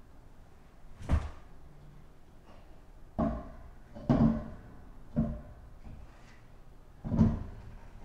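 Five irregular dull knocks with a short metallic ring: a 20-inch alloy wheel being hung and shifted onto the hub studs of a Honda Civic Type R.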